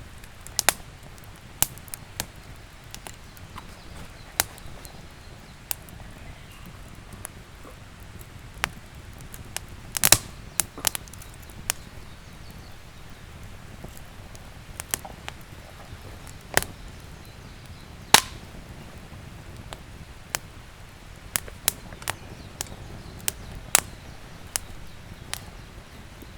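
Wood campfire crackling, with irregular sharp pops and snaps from the burning wood over a low, steady background.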